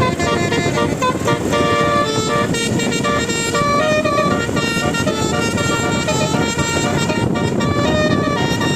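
Basuri telolet bus horn playing a melody in quick stepped notes, over a steady background of engine and crowd noise.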